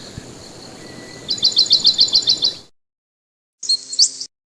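A songbird singing a fast run of about ten high chirping notes, roughly eight a second, that cuts off suddenly. Near the end comes a brief, separate half-second sound with a few low steady tones under it.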